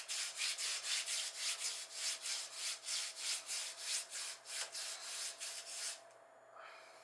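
Hand scrubbing a painted wall with a small cleaning pad: quick back-and-forth rubbing strokes, about four a second, that stop suddenly about six seconds in.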